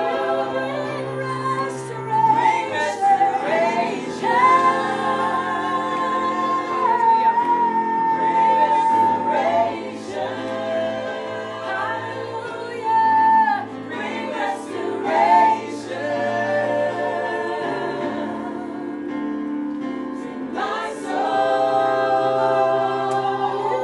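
Women singing a slow gospel worship song over sustained electronic keyboard chords, the lead voice holding long notes.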